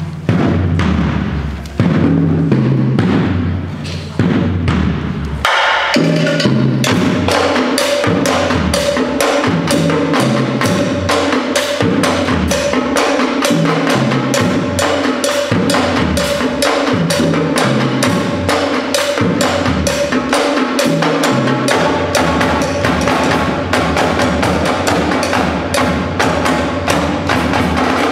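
Drumline playing marching snare drums and tenor drums. For the first five or so seconds lower drum notes step up and down in pitch, then the snares come in with a dense run of fast, even strokes.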